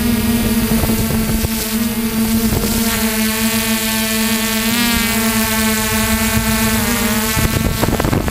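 Electric motors and propellers of a battery-powered RC aircraft, heard from its onboard camera: a steady hum at one pitch with many overtones, wavering briefly mid-way. Near the end the hum fades under rushing wind noise on the microphone.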